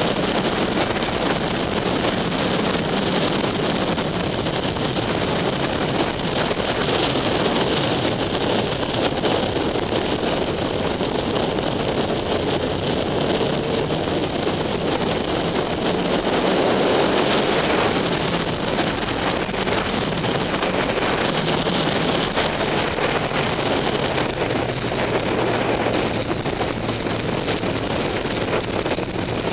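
Steady wind rush over a motorcycle-mounted camera's microphone while riding at speed, with the motorcycle's engine running underneath.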